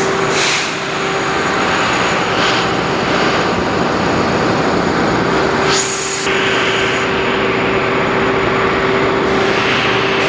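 Ship's engine-room diesel machinery running loudly and steadily, with a constant whine over the noise. Two brief hisses cut through, about half a second in and just before six seconds.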